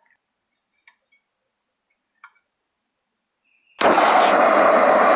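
A few faint clicks, then nearly four seconds in a propane burner lights with a sudden whoosh and keeps burning with a steady loud rushing hiss as gas flows from the newly opened tank to fire the forge.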